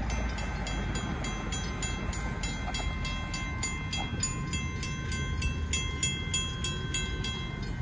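Railroad grade-crossing warning bells ringing rapidly and evenly, about four strikes a second, as the crossing gates come down, over a low rumble.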